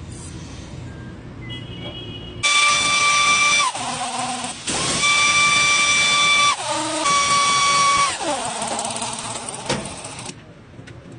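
Handheld power tool running in three bursts of a high steady whine, each winding down in pitch after it is released.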